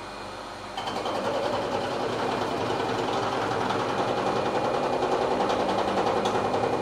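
Maho MH400E CNC mill running a 100 mm Sandvik insert face mill with three inserts. About a second in it bites into the cast iron block and cuts steadily at a 2 mm depth, a fast even pulsing of insert strikes over the spindle's hum.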